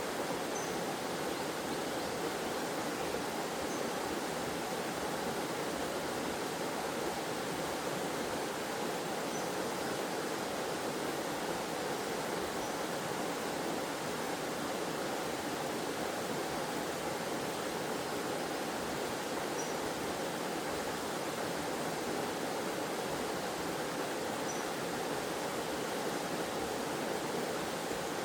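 Forest waterfall, water pouring and splashing in a steady, unchanging rush.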